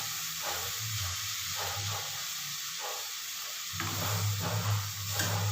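Eggs sizzling in a hot pan of sautéed greens and onions, a steady frying hiss as they set before being stirred. A low hum comes in more strongly about two-thirds of the way through.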